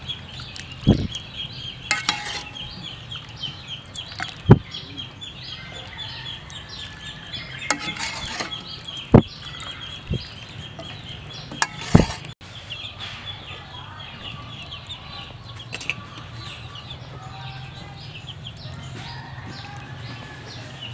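A spoon scooping soup and knocking against a ceramic bowl about four times, over continuous clucking and peeping of chickens in the background.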